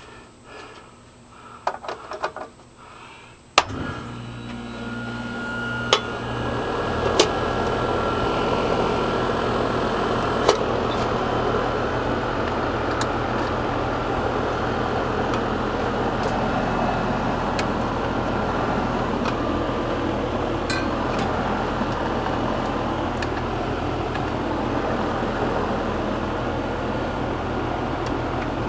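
R410A air-conditioning/heat-pump outdoor unit switching on with a click about three and a half seconds in. The compressor hums and the condenser fan comes up to speed over a few seconds, then the unit runs steadily.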